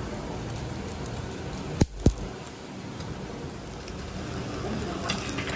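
Beef slices sizzling on a wire mesh grill over charcoal, a steady hiss and crackle, with two sharp clicks about two seconds in.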